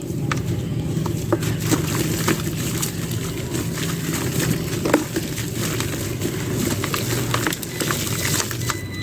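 Dry clay being crumbled: irregular crisp crackles and crunches over a steady low rumble, with one sharper crack about five seconds in.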